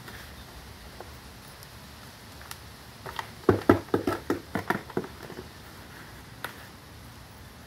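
A gloved hand scooping and handling potting soil in a plastic tub. About three seconds in there is a quick, irregular run of crunches and knocks lasting about two seconds.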